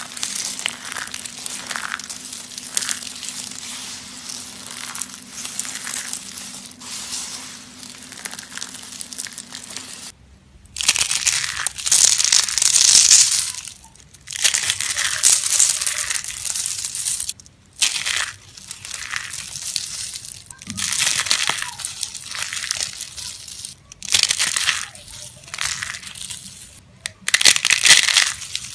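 Soap being crushed, crunching and crumbling. The crunching is continuous at first, then comes in separate bursts of a second or three, with brief drop-outs about ten seconds in and several times after.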